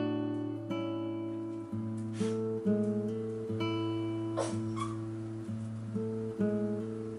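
Background music: an acoustic guitar playing a melody of plucked notes.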